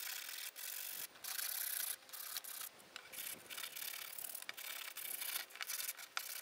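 Sandpaper rubbed by hand over flat steel bench hardware in repeated back-and-forth strokes, a dry scratchy hiss. The sanding takes off rust pitting and corrosion before a rust-converting primer.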